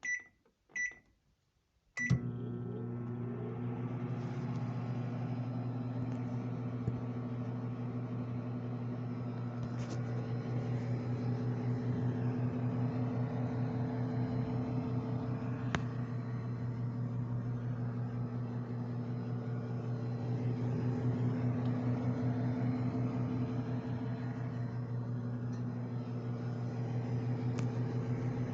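Microwave oven: two short keypad beeps, then a click about two seconds in as the oven starts, and a steady low hum as it runs.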